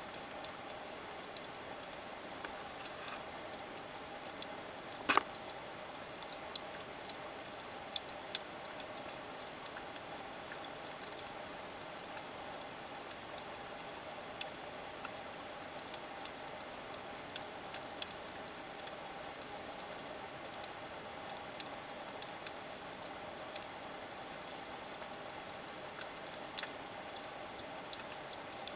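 Underwater reef ambience picked up by a submerged camera: irregular sharp clicks and crackles over a steady hiss and faint hum, with one louder click about five seconds in.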